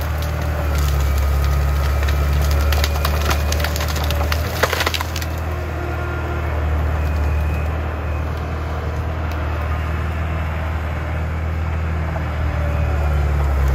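A tracked dozer's diesel engine runs steadily as it pushes through trees and brush, with wood cracking and splintering. There is a burst of sharp snaps around four to five seconds in.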